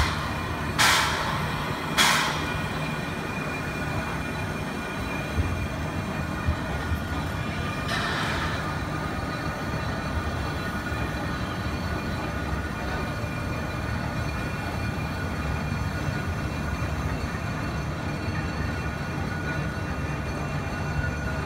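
A small steam switcher locomotive turning on a turntable. Three sharp steam chuffs come in the first two seconds and a shorter burst of steam about eight seconds in. Then a steady hiss and low rumble with faint, steady whining tones as the turntable swings round.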